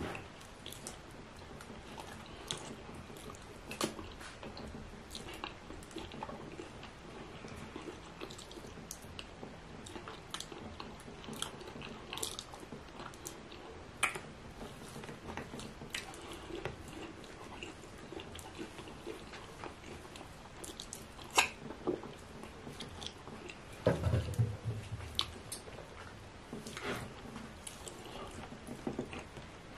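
Close-miked chewing and wet mouth sounds of a person eating fufu with ogbono soup, with soft smacks and clicks scattered throughout. One louder, low bump comes late on.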